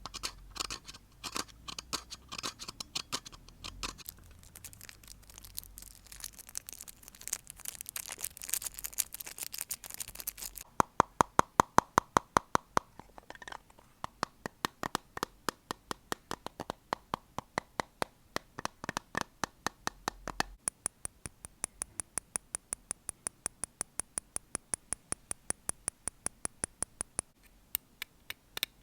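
Close-miked ASMR triggers in quick succession: clicks, then a stretch of bright scratching, then rhythmic tapping on objects at about three taps a second.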